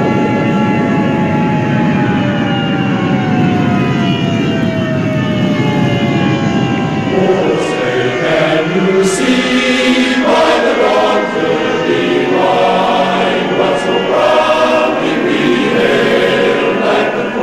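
A heavy low noise with several steady tones sliding slowly down in pitch, giving way about seven seconds in to a choir singing.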